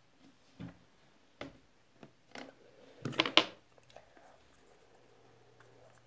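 Hands handling a small plastic makeup compact: a few soft clicks and rustles, with a louder scraping rustle about three seconds in.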